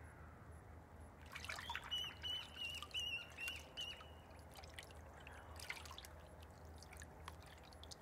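Faint splashing and dripping of shallow water as a water rail probes and dunks its bill and head beneath the surface, with small splashes bunched between about one and four seconds in and again near six seconds. A run of short, high bird notes, about three a second, comes from about two to four seconds in.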